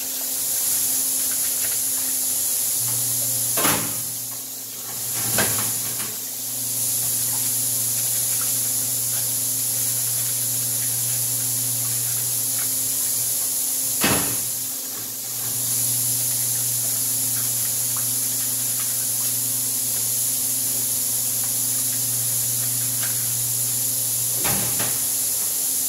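Steady loud hiss and low hum of decontamination-room machinery, with a few sharp knocks spread through.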